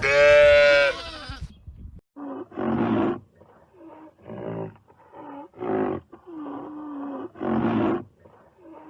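A large animal calling in a series of short, rough, pitched calls, about one every three-quarters of a second. It follows a single loud, drawn-out pitched animal call at the start.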